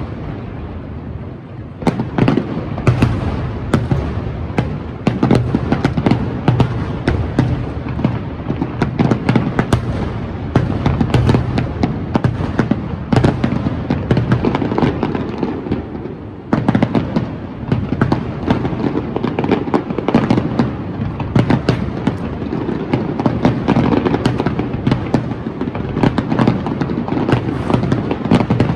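Fireworks display: a dense, continuous barrage of bangs and crackling bursts, easing off briefly near the start and again about halfway through.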